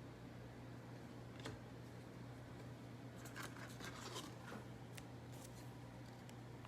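Faint scratchy ticks and rustles of trading cards being handled and slid through a pack, mostly in the second half, over a low steady hum.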